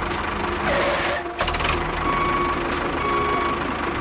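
A small engine running steadily, with two short beeps near the middle and a click about a second and a half in.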